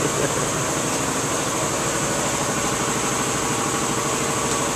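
An engine idling steadily, a constant drone with a hiss over it.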